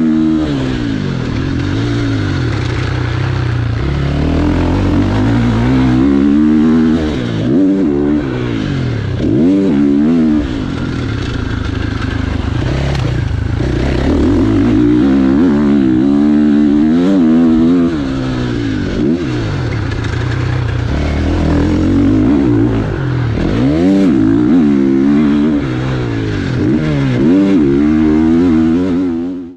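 2023 KTM 450 SX-F single-cylinder four-stroke motocross engine at racing speed, revving up and falling off again and again as the rider works the throttle and gears, heard close up from a helmet-mounted camera.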